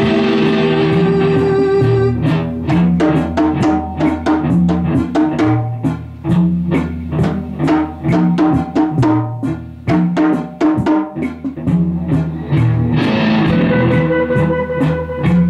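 Music: a held chord, then from about two seconds in a steady band beat of drums and bass under a guitar, with a held chord coming back near the end.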